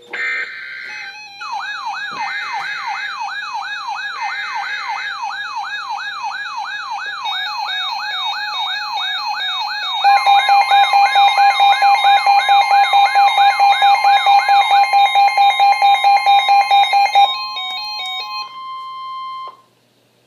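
Electronic emergency alert tones: a few short screechy bursts at the start, then a rising siren-like sweep repeating about twice a second, joined about halfway through by a louder beep pulsing about four times a second. It ends with a few stepped tones and cuts off shortly before the end.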